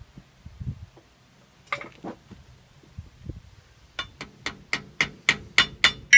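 Metallic clinks during brake work: two single clinks, then a steady run of about nine sharp, ringing metal taps at about four a second.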